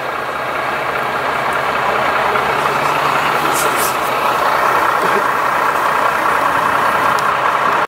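MAN TGM 13.290 fire engine's six-cylinder diesel idling steadily.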